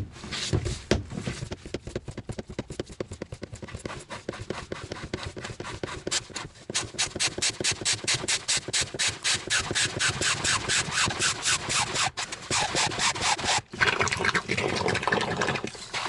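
Atwood hand bilge pump being worked by hand, drawing water through corrugated tubing out of a flooded air-conditioner secondary drain pan. The strokes are uneven at first, settle into a fast, even rhythm through the middle, and turn denser and noisier near the end.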